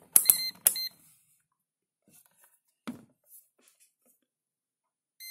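MUSTOOL MT66 handheld digital multimeter giving short, high electronic beeps: two close together with clicks near the start, and one more near the end. A soft knock comes about halfway through.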